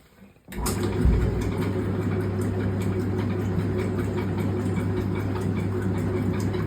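Washing machine agitating: after a brief pause the drive starts up about half a second in, with a jolt, then runs steadily with a low motor hum.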